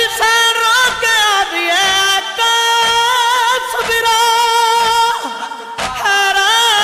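A man singing a noha lament in long, drawn-out notes that waver in pitch, with a short break about six seconds in.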